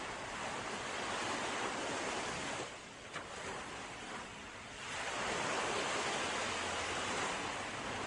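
Sea waves breaking and washing on the shore: one wave surges, dies into a short lull, and then a second, louder wave rolls in and slowly fades.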